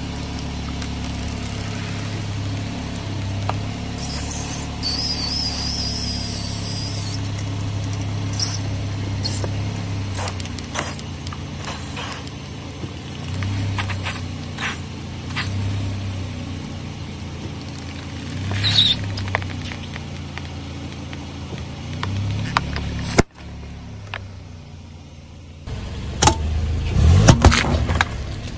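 Car engine idling while a tyre slowly rolls over a plastic soda bottle, the plastic crackling and creaking as the bottle is flattened and the soda squeezed into a balloon on its neck. A single sharp bang comes about 23 seconds in. Near the end, a run of loud crunches and cracks as the tyre crushes a soft, liquid-filled object.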